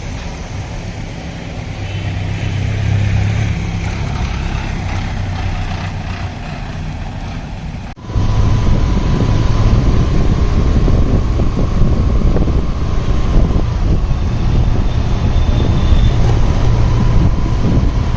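Motor vehicle driving: steady engine and road noise. It turns abruptly louder and heavier after a cut about eight seconds in, with a faint steady high tone over it.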